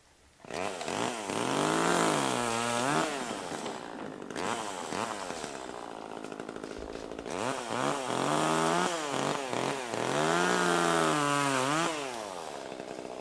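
Two-stroke chainsaw revving up and down in two long bursts, its pitch rising and sagging, then settling lower near the end.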